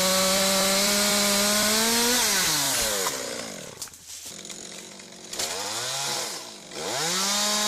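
Two-stroke chainsaw at full throttle for about two seconds, then easing back to idle. It is revved up and let down once near the middle, then brought back up to full speed near the end.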